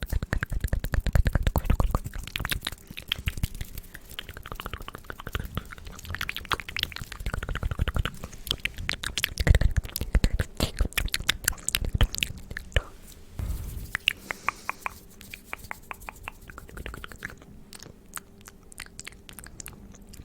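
Close-miked ASMR mouth sounds: wet clicks, pops and smacking of lips and tongue, in fast runs and slower stretches.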